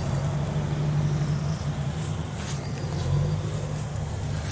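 Steady low motor hum, even and unbroken.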